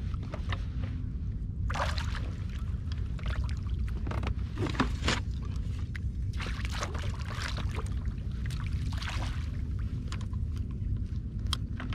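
Water splashing and sloshing in several short bursts as a hooked fish thrashes at the surface beside an inflatable boat and is scooped into a landing net, over a steady low rumble.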